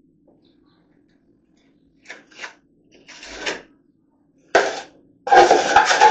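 Drywall knife scraping and spreading joint compound: a few short scrapes, then a sharper stroke and a longer, louder scraping stretch near the end.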